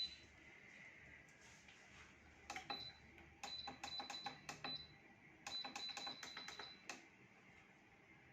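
Freesub PD220 heat press control panel: buttons pressed one after another, each with a short, high electronic beep, in two quick runs. The machine has just been powered on and is being set.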